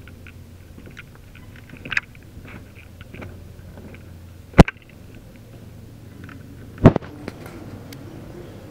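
Two loud, sharp bangs about two seconds apart, over a low steady hum with light ticks and taps.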